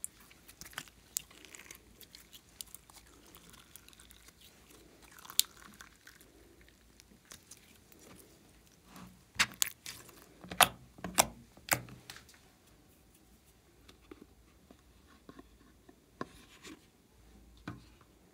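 White slime being squeezed and pressed by hand in a plastic basin, giving scattered sticky clicks and pops, with a run of loud sharp pops about nine to twelve seconds in.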